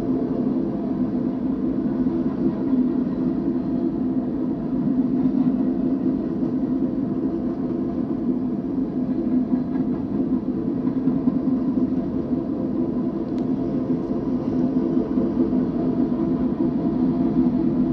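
BNSF manifest freight train's cars rolling past on the rails, a steady rumble.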